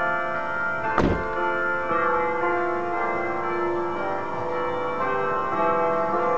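Church bells ringing, several bells struck in turn so that their long, ringing tones overlap. A sharp knock sounds about a second in.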